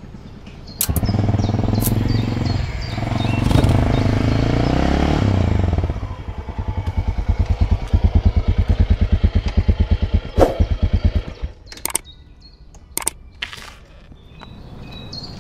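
Honda NX650 Dominator's single-cylinder four-stroke engine. It comes in loud with the revs rising and falling, settles to an even, thumping idle for about five seconds, and stops suddenly. A few sharp clicks and knocks follow as the rider gets off the bike.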